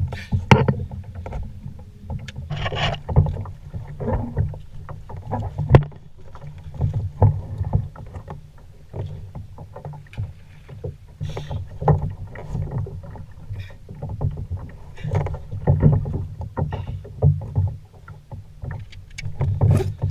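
Sounds of a fishing kayak on the water: a constant low rumble of water against the hull, broken by irregular knocks and clunks, the sharpest about six seconds in.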